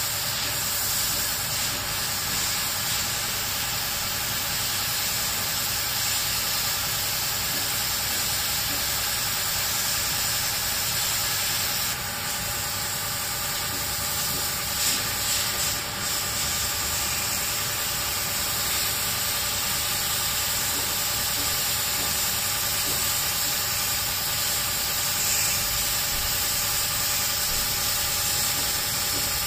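Pressure washer running steadily: the high-pressure water jet hissing as it sprays, over the even drone of the washer's pump motor.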